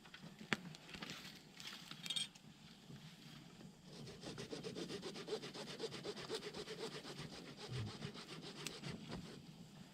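Handsaw cutting through firewood with quick, even back-and-forth strokes, which grow steadier and louder about four seconds in.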